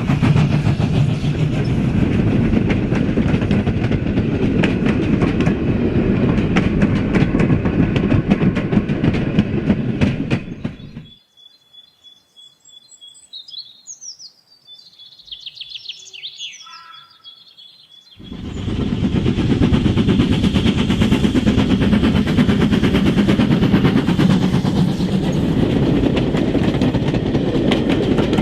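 OO gauge model train running on the track: a steady motor and wheel rumble with rapid clicks as the wheels pass over the rail joints. About eleven seconds in, it cuts out for several seconds, leaving a few high bird-like chirps, then the train running resumes.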